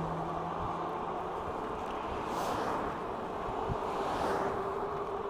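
Wind rushing over the microphone of a moving e-bike on a road, with passing vehicles swelling in and fading twice, about two and a half and four seconds in.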